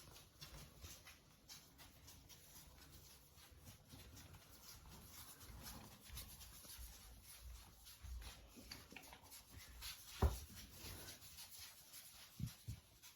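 Faint rustling and scratching, with one sharp thump about ten seconds in and two soft knocks near the end.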